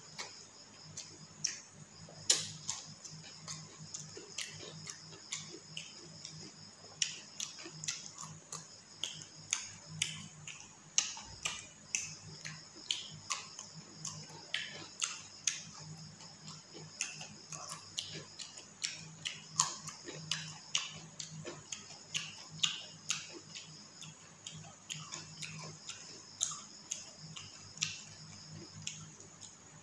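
A person eating rice and mutton curry by hand: repeated sharp wet clicks of chewing and lip-smacking, with fingers working the food on the plate, about one or two a second. A steady high-pitched drone and a low hum run underneath.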